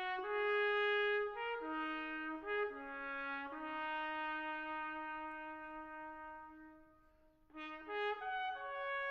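Brass music, led by trumpet, playing a slow melody of held notes; one long note fades out about seven seconds in before the next phrase begins.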